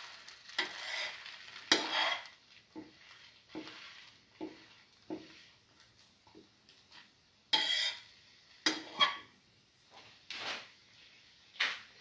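Perforated steel skimmer pressing and scraping on frying French toast in a non-stick pan. It makes a run of short, regular scrapes, then a few louder clatters in the second half.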